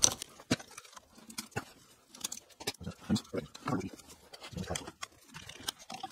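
Irregular clicks, taps and short scrapes of hard plastic and metal engine parts being handled and worked loose during an intake teardown.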